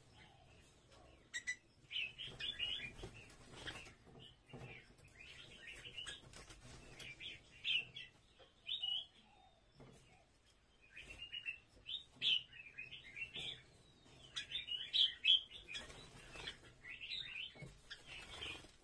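Red-whiskered bulbul singing: quick, chirpy warbled phrases of a few seconds each, repeated with short pauses between them.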